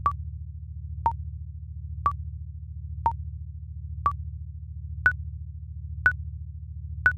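Countdown timer sound effect: a short electronic tick once a second, eight ticks in all, the last three higher in pitch. The ticks sit over a steady low pulsing synth drone.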